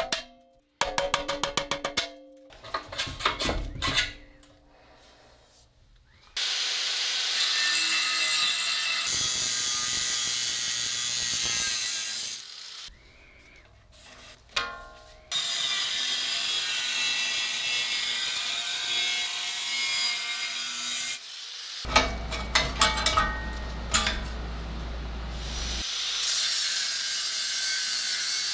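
Angle grinder running against the steel of an old air compressor tank in several long, steady stretches, broken up by bursts of clicks and knocks from hand work on the tank.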